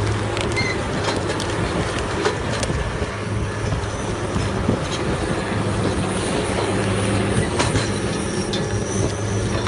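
Stump grinder running under load: a steady engine drone with a constant low hum, broad grinding noise from the cutter wheel, and scattered sharp clicks and ticks.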